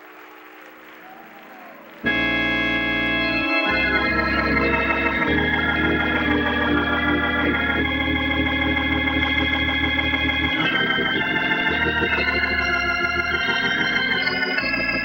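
After a faint start, organ music begins abruptly about two seconds in: loud sustained chords over a deep bass, changing chord several times.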